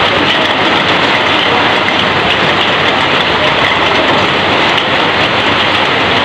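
Heavy rain falling in a steady, dense hiss, pouring onto and off corrugated roof sheeting.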